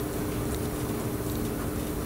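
Train running along the track: a steady rumble with an even, steady hum over it.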